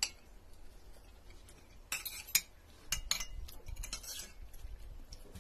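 Metal spoons and forks clinking and scraping on ceramic plates as people eat, with irregular separate clinks, the loudest a little over two seconds in.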